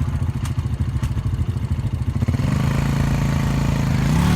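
ATV engine running under throttle with a rapid low pulse. The note steadies and grows slightly louder a little past halfway.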